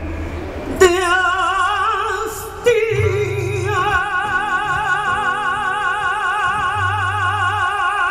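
Live female vocalist singing the song's final notes, ending in a long held note with wide vibrato, over a band with a low bass line.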